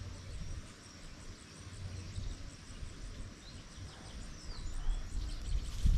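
Birds chirping, with one short downward-sliding call about four seconds in, over a low rumble of wind on the microphone. A faint, high ticking repeats evenly at about three to four a second.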